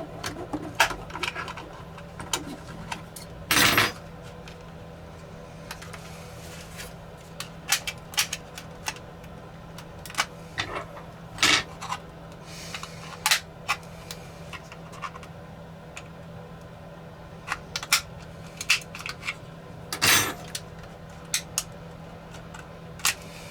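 Small hand tools and plastic drone parts being handled during disassembly: scattered sharp clicks and taps with a few short scrapes, two of them longer, over a steady low hum.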